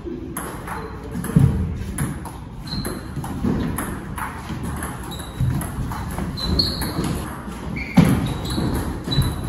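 Table tennis ball being hit back and forth by rackets and bouncing on the table in a defensive rally. Each hit is a sharp click that echoes in a large hall, with a louder hit about a second and a half in and another near the end.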